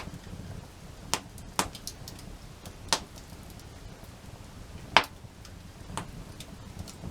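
Wood fire crackling, with about five sharp pops at uneven intervals, the loudest about five seconds in, and fainter ticks between them.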